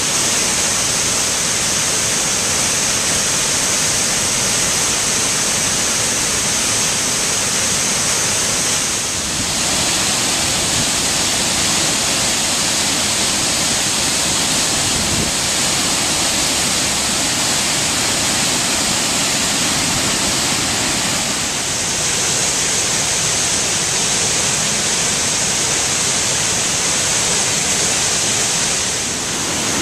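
Great Falls of the Passaic River: a steady, loud rush of water pouring over the rock ledges into the gorge below.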